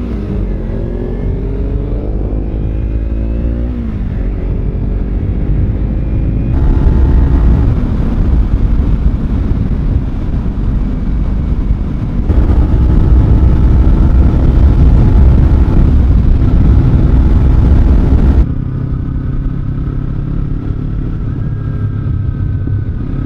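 Kawasaki Z300 parallel-twin motorcycle engine heard from the rider's helmet, rising in pitch and dropping at a gear change, then pulling steadily at speed. Heavy wind rush over the helmet microphone comes in after about six seconds and cuts off suddenly a few seconds before the end.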